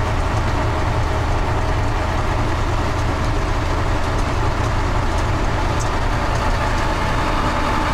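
Ural-4320 army truck's diesel engine running steadily under way, heard from inside the cab as a constant low drone with drivetrain and road noise.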